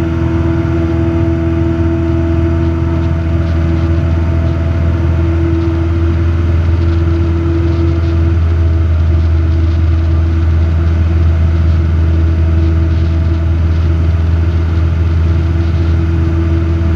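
Robin DR400 light aircraft's piston engine and propeller droning steadily in flight, heard inside the cockpit.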